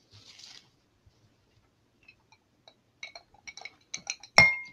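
Glass jar clinking against a glass mixing bowl while slime activator is poured from it: a run of small ringing clinks, then one loud clink near the end.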